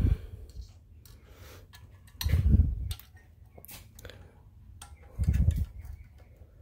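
Small metal clicks and taps of washers and a cotter pin being fitted on a carburetor's throttle linkage, with two dull low thumps, about two and five seconds in.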